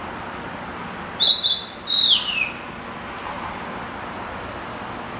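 Male narcissus flycatcher singing: one short phrase about a second in, a few high clear notes followed by a falling slur.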